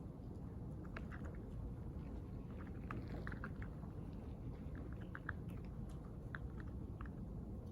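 Library room tone: a steady low rumble with scattered light clicks and taps from people working nearby.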